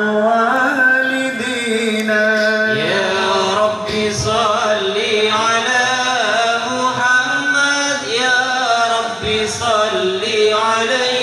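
A group of men chanting Islamic sholawat together in a continuous, melodic line, amplified through a PA sound system.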